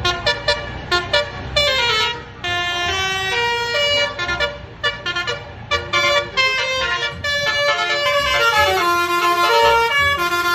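Indonesian 'telolet' bus horn playing a tune: a run of short repeated toots, then a melody of longer held notes stepping up and down in pitch.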